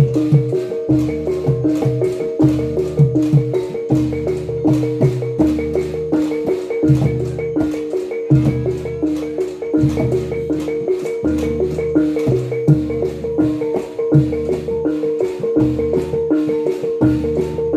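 A live gamelan ensemble playing reog/jatilan dance accompaniment: a repeating pattern of ringing struck metal gong-chime notes over a held gong tone, with low kendang drum strokes and a brisk, even beat of sharp strikes.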